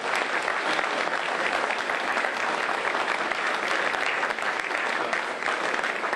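An audience applauding steadily, the sound of many hands clapping at once.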